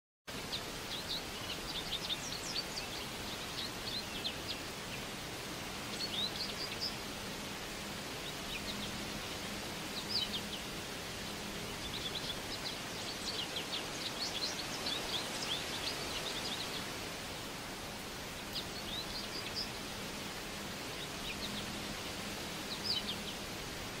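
Forest ambience: a steady hiss of outdoor background noise with small songbirds chirping in clusters of quick, high notes every few seconds, busiest in the middle.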